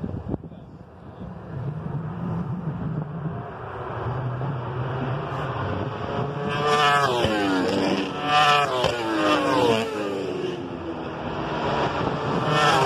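Superbike race motorcycles at high revs. A low engine drone builds as they approach, then several loud engine notes follow one after another from about halfway, each sliding down in pitch, with another starting near the end.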